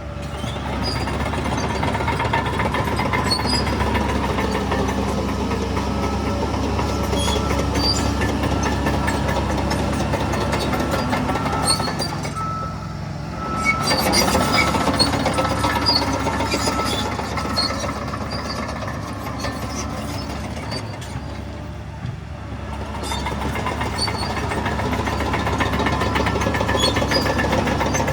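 Diesel engine of heavy earth-moving machinery running under load, swelling and easing several times, with scattered light clinks.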